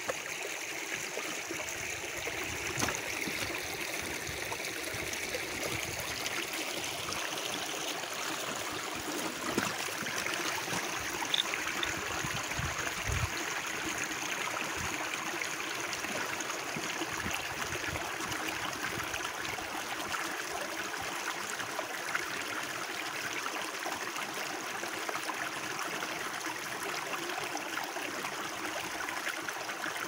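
Shallow stream running over stones in a steady rush, with a few short splashes and thuds as rubber boots wade through the water.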